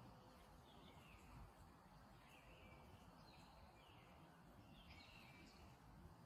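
Faint background birdsong: a small bird repeating short, high chirping phrases about once a second over a low, steady rumble.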